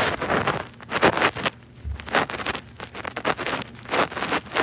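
Irregular crackling and rustling bursts of noise from a phone's microphone, several a second, which viewers call a weird noise in the background.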